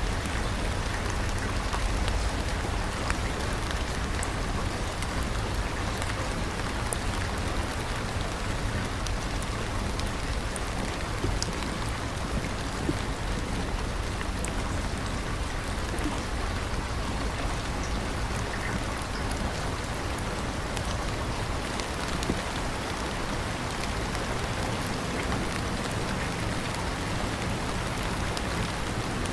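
Steady rain: an even hiss of rainfall with many small sharp drop ticks scattered through it, over a low steady rumble.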